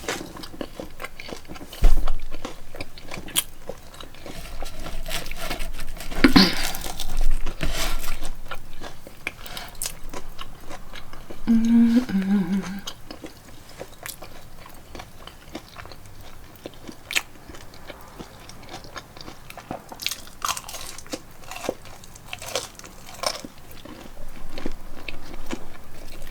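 A person biting and chewing crunchy fried food, corn dog and french fries, close to the microphone, with scattered crisp crunches and clicks. There is a knock about two seconds in.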